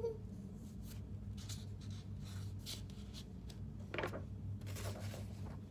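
Paper handling at a desk: light rustles and scratches on a notebook's pages, with a page being turned about four seconds in. A steady low hum runs underneath.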